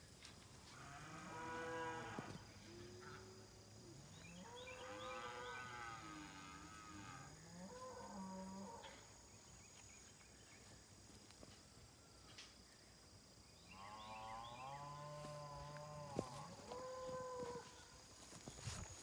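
Cattle mooing, several long drawn-out calls that bend in pitch, coming in two bouts with a quiet gap of a few seconds in the middle.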